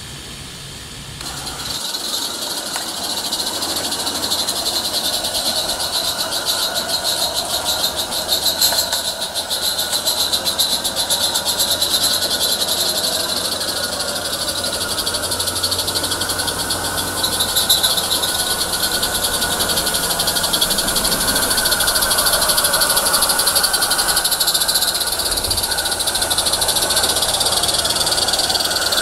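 Rapid, even exhaust chuffing of two Roundhouse live steam garden-railway locomotives double-heading a train, starting about a second and a half in and growing louder as they come near.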